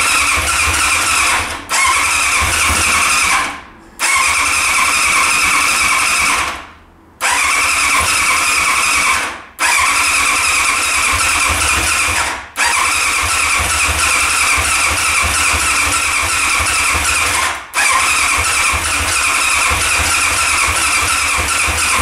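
Motorcycle engine being cranked by its starter over and over, in runs of a few seconds each with short breaks between, without catching. Under the steady whine runs a low pulsing from the cranking engine.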